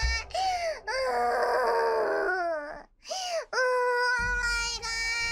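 A young woman's high-pitched voice shrieking and wailing in long drawn-out cries, "ngaaaaaha" and then "uuooh my gahh", with the pitch sliding up and down. A short break comes about three seconds in, and then one long held cry.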